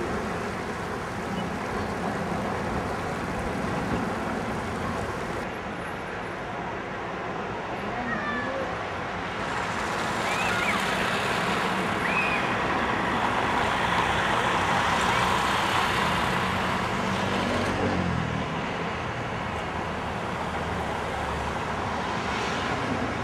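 Ambience of a busy city square: a steady hum of traffic and crowd murmur that swells in the middle, with a few short, high calls rising and falling.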